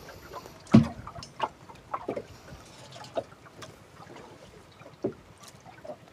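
Sea water splashing and slapping irregularly against the hull of a small outrigger boat, with a loud thump about a second in.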